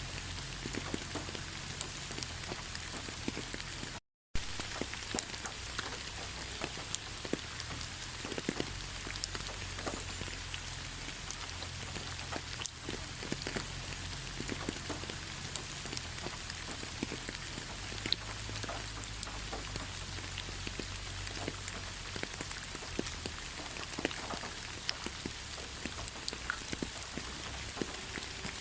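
Gentle rain falling steadily, a continuous patter with many separate close drops ticking. It cuts out briefly about four seconds in.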